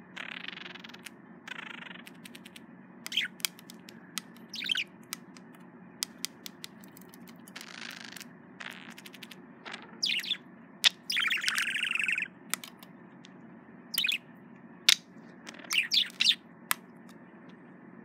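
Male budgerigar's courtship chatter at its reflection in a mirror: short bursts of chirps and warbling, with sharp clicks in between.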